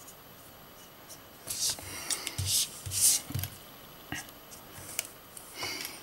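A sheet of card being handled, turned and slid on a wooden desk: a couple of seconds of rustling and scraping with soft knocks, then two short clicks and a brief rustle.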